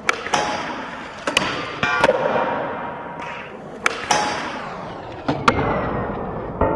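Skateboard wheels rolling on smooth concrete, broken by several sharp clacks of the board popping, landing and striking the rail. Near the end the board grinds and slides along a metal flat bar with a scraping squeal.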